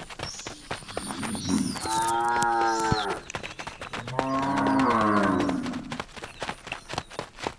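Cattle mooing twice: a call lasting about a second, then a longer one that drops in pitch at its end. Short crackling clicks of cows cropping and chewing fresh-cut grass run around the calls.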